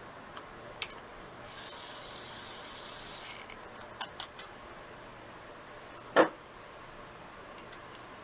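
Small metal clicks and clinks of bolts and tools being handled while thread-locker is put on the bolts, with a faint hiss for about two seconds and one louder knock about six seconds in.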